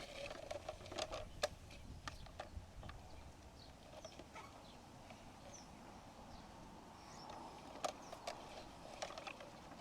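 Faint scattered clicks and taps of plastic toy excavator and loader parts being worked in dirt, with a few short high chirps here and there.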